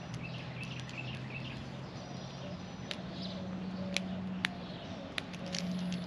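Quiet outdoor background of birds chirping over a steady low hum, with about four small sharp clicks in the second half as a screwdriver works wire into a screw-terminal DC power adapter.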